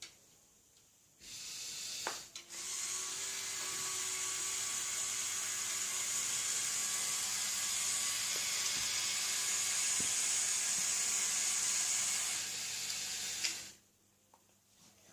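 Lego Technic 42009 Mobile Crane's Power Functions electric motor running its plastic gearing: a steady whir that starts about a second in, stops for a moment, then runs evenly and cuts off near the end.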